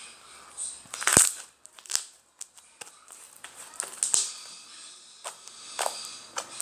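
Homemade clicky slime being squeezed and pressed by hand, giving off irregular sharp clicks and pops with faint crackling between them; the loudest click comes about a second in.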